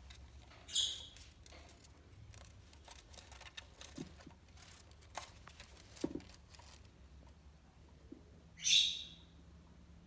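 Quaker parrot (monk parakeet) giving two short, sharp chirps, one about a second in and one near the end. Between them come scattered small clicks and crunches as it chews on a window-blind slat.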